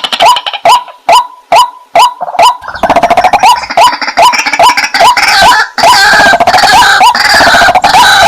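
White-breasted waterhen (burung wak-wak) calling: a fast, even series of loud 'wak' notes, about three a second. From about three seconds in, more calls overlap in a dense, busier chorus.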